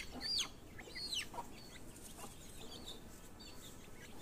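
Month-old chicken chicks calling: two loud, downward-sliding calls in the first second or so, typical of a chick's distress call while it is held, then fainter short high peeps from the flock.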